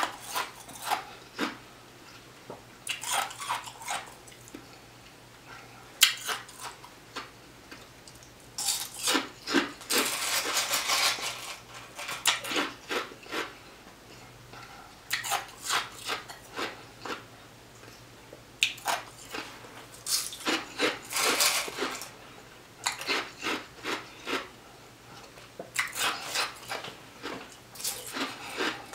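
Close-up eating sounds: spoonfuls taken from a plastic tub with a plastic spoon, with the spoon scraping and knocking the tub and chewing coming in crackly clusters.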